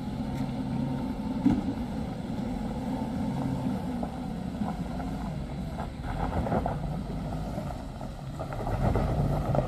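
Car engine running at low speed as a small MPV crawls over a rough, broken gravel road, a steady low hum throughout.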